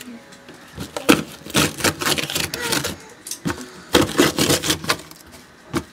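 Paper letter tiles being poked and torn through with a finger: a run of short, irregular crunching and tearing sounds, in a cluster about a second in and another about four seconds in.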